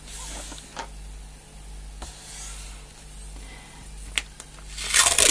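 Faint rubbing of hands on cardboard and paper, then a brown paper tape strip lifted and handled, with a sharp click about four seconds in and a loud paper rustle near the end.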